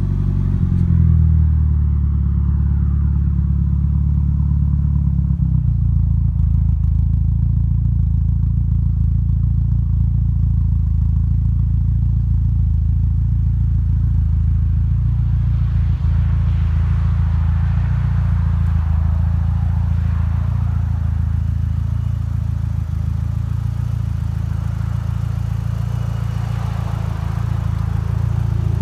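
Mitsubishi Lancer Evolution IV's turbocharged 2.0 L 4G63 four-cylinder idling steadily through an aftermarket exhaust, with a brief rise in its note about a second in.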